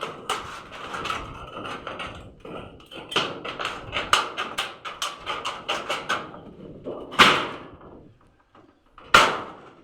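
House repair work: a quick run of knocks and taps, several a second, then two louder rasping strokes in the last few seconds.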